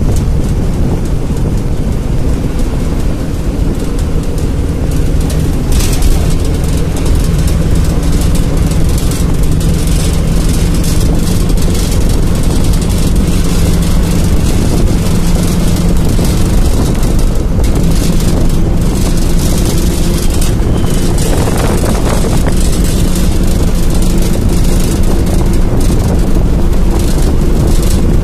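Steady drone of a vehicle travelling at speed, heard from inside: low engine hum and rumble with road and wind noise, its pitch shifting slightly.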